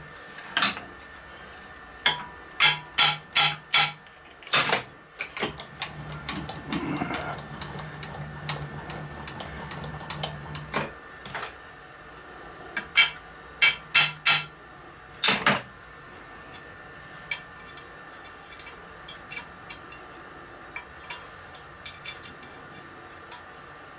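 Sharp metallic taps on a steel angle bracket on a milling machine column, tapping it into line: a quick run of about five a couple of seconds in, another cluster about halfway through, then fainter ticks. A low steady hum runs under the first half.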